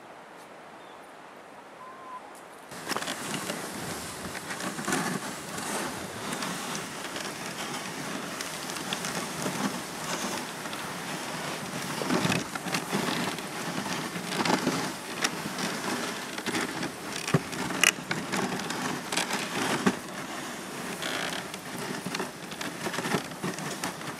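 Faint steady hiss, then, about three seconds in, a dog sled running over a packed snow trail behind a two-dog team. The runners keep up a steady scraping hiss, with frequent clicks and knocks.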